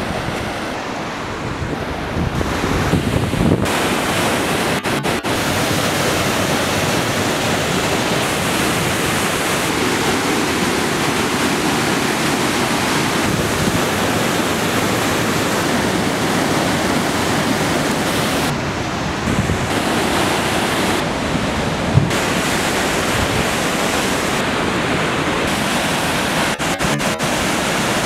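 Waterfall and river rapids rushing: a loud, steady wash of whitewater whose tone changes abruptly a few times. A single brief thump about two-thirds of the way through.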